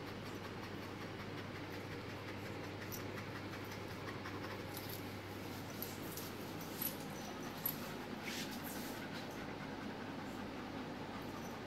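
A pug puppy playing with a lying Beauceron on a tile floor: soft scuffling and a few sharp clicks, over a steady low hum.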